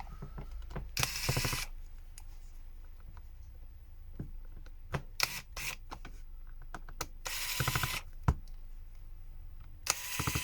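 Screwdriver taking out the small screws on the back of a Redmi Note 11 phone: three short bursts of rapid clicking, with scattered small clicks and taps between them.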